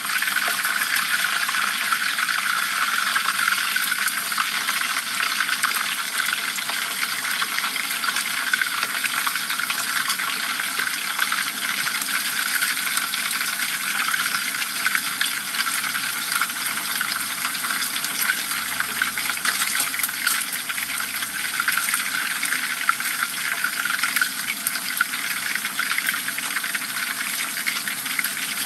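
Hot oil sizzling and bubbling steadily around whole dorado fish deep-frying in a pan.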